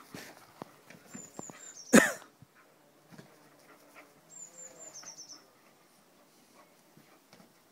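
A young English bull terrier barks once, loudly, about two seconds in, with faint scuffs and taps from its play on the grass. A small bird gives a short run of high chirps twice in the background.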